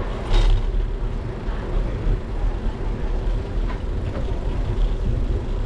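Tour trolley bus's engine running with a steady low rumble as it passes close alongside a moving bicycle. A short knock comes about half a second in.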